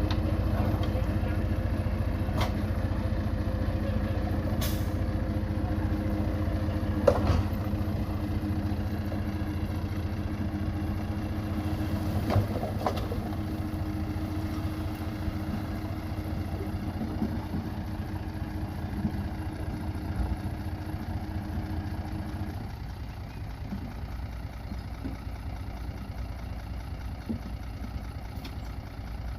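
A heavy earthmoving machine's diesel engine running steadily at low revs, with a few sharp knocks in the first half. The engine's steady note dies away about three-quarters of the way through, leaving a quieter low rumble.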